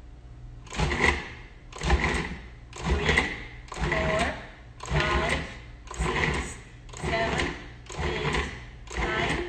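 Food processor pulsed in short bursts, about nine pulses roughly once a second, its blade chopping cold butter chunks into flour for pastry dough.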